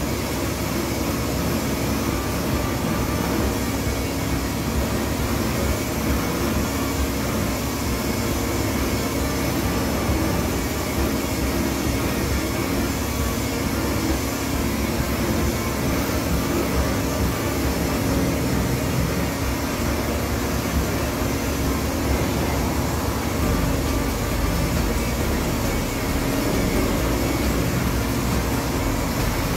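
Handheld electric rotary polisher running at a steady speed, its pad working over a car's paintwork, with a constant motor hum.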